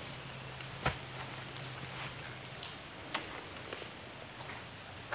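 Steady high-pitched drone of insects, with three short sharp knocks about a second in, near three seconds and at the very end.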